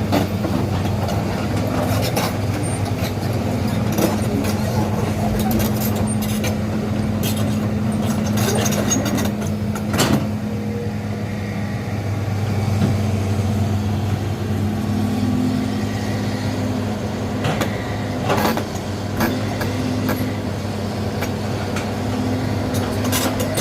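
Excavator's diesel engine running steadily, with several sharp knocks over the top, the loudest about ten seconds in.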